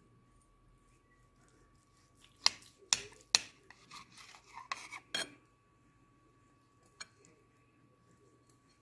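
Kitchen knife cutting through soft fresh rennet-and-yogurt cheese, its blade clicking and scraping against the glass plate beneath: three sharp clicks in quick succession, a run of shorter scrapes and taps for about two seconds, then one more click.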